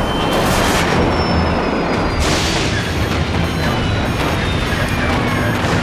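Sound-effect reenactment of a DC-9 jet airliner in a severe storm: a loud steady rumble with several heavy bangs, and faint whines falling slowly in pitch as a failing engine winds down.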